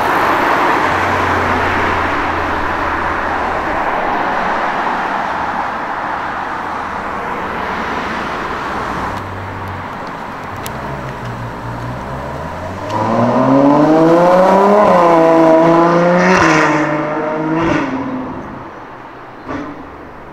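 Steady road and tyre noise from passing traffic, then about twelve seconds in a car accelerates past. Its engine note rises in pitch with brief dips at the gear changes before fading away.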